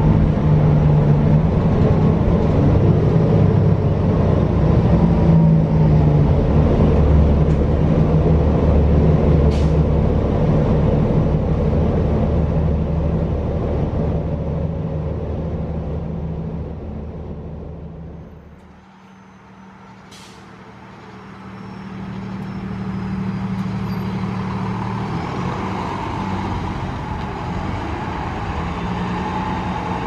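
Cummins L9 diesel engine of a New Flyer XD40 city bus running under way, heard from inside the cabin as a loud, steady hum. A little past halfway the sound falls away sharply; after a single sharp click the bus engine is heard from outside, growing louder and then holding steady.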